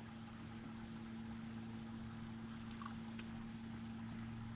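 A machine's steady low hum, as of a motor running at constant speed, holding one unchanging pitch. A few faint light ticks come about halfway through.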